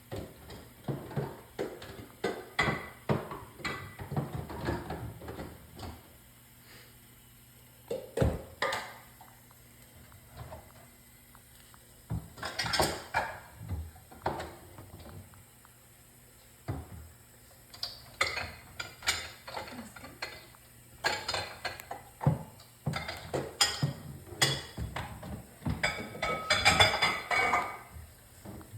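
Dishes and cutlery clinking and clattering in irregular bursts of handling, with short quiet gaps between.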